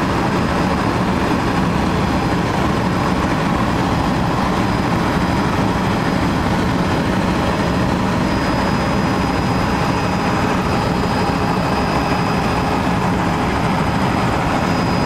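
Steady, loud engine and rotor noise of a small four-seat sightseeing helicopter in flight, heard from inside the cabin, with a faint high whine held throughout.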